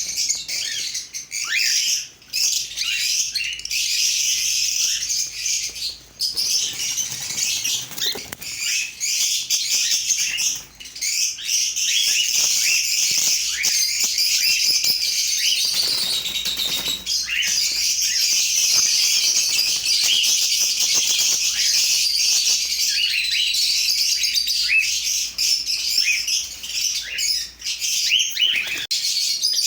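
A flock of parrots chattering and chirping without pause, many high, short calls overlapping in a dense din.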